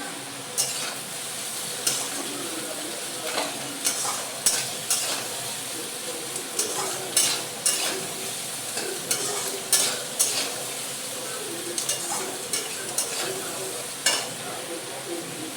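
Thinly sliced onions and chopped garlic sizzling in hot oil in a pan, stirred with a spatula that scrapes and knocks against the pan over and over, at irregular intervals.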